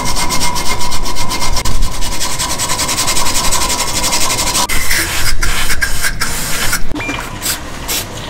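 Hand wire brush scrubbing rust off a truck's rear leaf spring and axle in fast back-and-forth strokes. The scrubbing stops about five seconds in, and a few separate scrapes and knocks follow.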